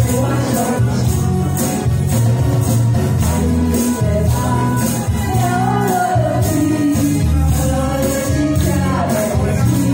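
Two women singing a pop duet into microphones over an accompaniment track with a steady beat, about two beats a second.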